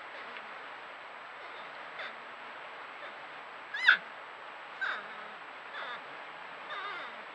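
North American porcupines calling: five short, wavering whines that rise and fall in pitch, about one a second from two seconds in, the loudest about four seconds in, over a steady hiss.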